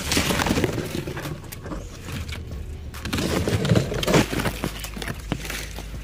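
Leaves and twigs rustling and crackling as a climber shifts among the branches of a tree, loudest right at the start and again about three to four seconds in.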